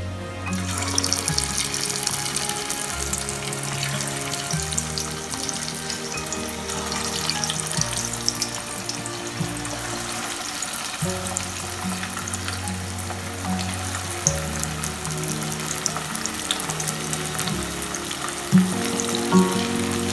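Kilikkood balls deep-frying in hot oil in a pan: a dense sizzle with fine crackles that starts about half a second in and keeps up steadily. Background music with held low notes plays underneath.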